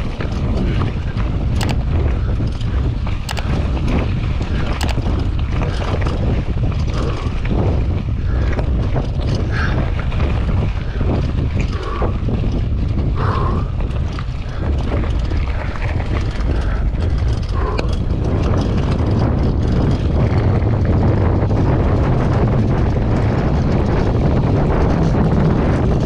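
Wind rumbling on the microphone of an action camera on a moving mountain bike, with scattered clicks and knocks from the bike on the trail. The rumble grows a little louder about 20 seconds in.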